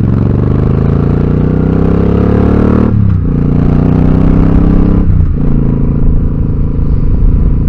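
Motorcycle engine accelerating through the gears: the pitch climbs, drops at an upshift about three seconds in and again about five seconds in, then holds steady.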